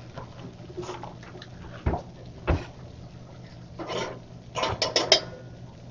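Cookware and utensils being handled on a stove and counter: two dull knocks about two seconds in, then a clatter and a quick run of clinks near the end, over a steady low hum.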